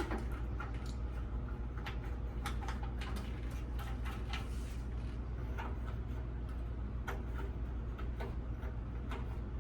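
Irregular light clicks and ticks of metal caps being threaded back onto a tankless water heater's service valve ports, over a steady low hum.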